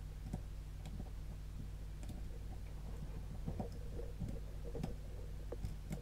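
Faint, irregular clicks and small scrapes of a thin pick working the pins inside a Mul-T-Lock Classic dimple lock cylinder, over a faint steady hum.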